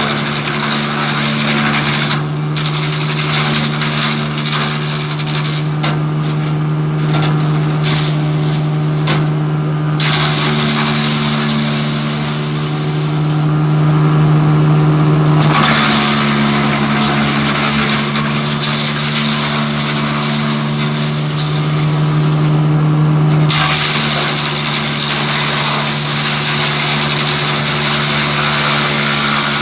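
Hasatsan DP 700 T wood chipper running at a steady speed, with the harsh grinding of wood being chipped that drops away a few times and comes back.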